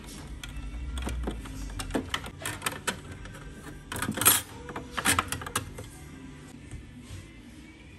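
Metal drip-tray grate and tray of an Oxone espresso machine clicking and clattering as they are handled and set in place: a run of light clicks and rattles, loudest about four seconds in. Background music plays underneath.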